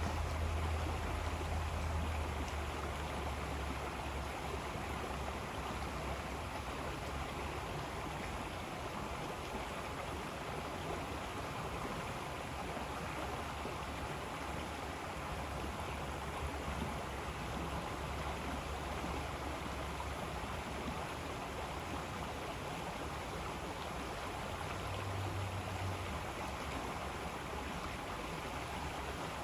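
River water flowing in a steady, continuous rush, with a low rumble underneath that is strongest over the first few seconds and swells briefly again near the end.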